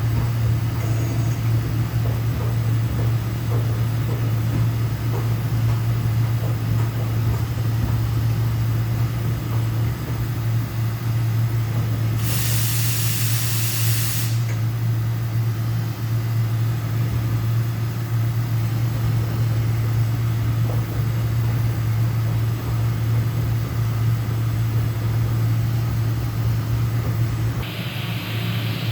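2019 DMG Mori NVX7000/50 CNC vertical machining center running with its spindle on: a loud, steady, low hum. About twelve seconds in, a burst of hiss lasts about two seconds, and another hiss starts near the end.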